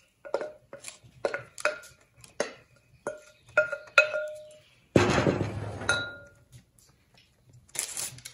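Wooden spoon knocking and scraping against a glass bowl as rhubarb pie filling is scraped out, each knock making the glass ring briefly. About five seconds in, a louder rustling rush lasts about a second.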